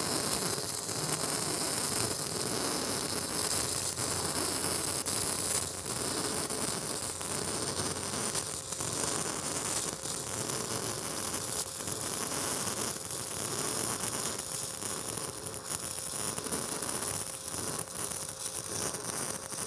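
E6010 stick-welding arc on DC positive running a vertical-up root pass: a steady, crackling hiss with brief dips in level now and then. It is the roar of the arc ripping out the back of the joint, the sign of a keyhole burning through for full root penetration.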